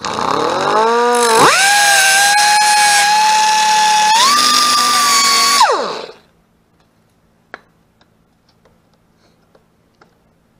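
Angle grinder with a cutoff wheel spinning up with a rising whine, then cutting metal at a stripped screw on the pit bike's engine cover, its pitch held down under load with a grinding hiss. About four seconds in the pitch jumps up as the wheel comes off the metal, and at about six seconds it is switched off and winds down. A few faint clicks follow.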